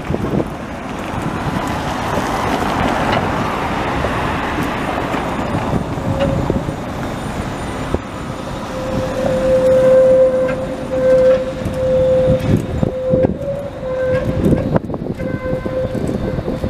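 Tatra T3 trams running on street track: first the broad running noise of a tram moving off, then from about six seconds in a steady high squeal of steel wheels on the rails as the trams take a tight curve at a junction. A few sharp clacks over the rail joints or points near the end.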